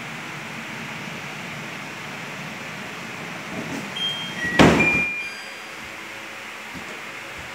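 Zeomax Ultra kitchen chimney's blower running with a steady airy hiss. About four seconds in there is a loud rustling knock, and the hood's touch panel gives a few short beeps; after these the blower runs a little quieter.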